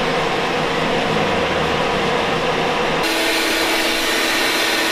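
Vacuum cleaner running steadily while its hose wand sucks dust off a ceiling fan. About three seconds in, its hum shifts to a lower pitch with a brighter hiss.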